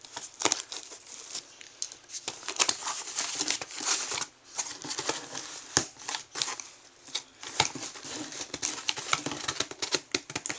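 A mailed shipping box being opened and its packaging handled by hand: irregular crinkling and tearing with many scattered clicks and scrapes.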